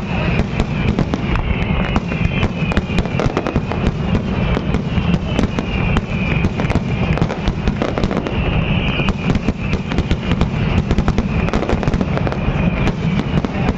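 Aerial fireworks display in full barrage: shell bursts and crackling coming thick and fast, many bangs a second with no break, over a continuous rumble.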